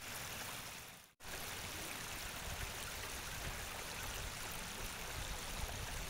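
Shallow stream flowing over rocks, a steady even rush of water that cuts out for a moment about a second in.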